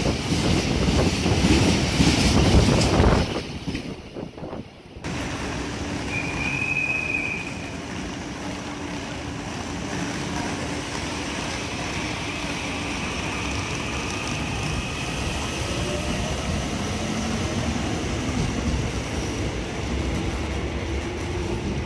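Freight train of tank wagons passing through the station at speed, a loud dense rumble and clatter of wheels that drops away about three seconds in. After that comes a quieter steady station hum with a brief high tone about six seconds in, as another train approaches from a distance.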